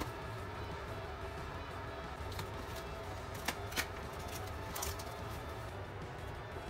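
Quiet background music under kitchen handling noises: a few short, sharp clicks and taps from the mushroom tray and knife being handled on the counter.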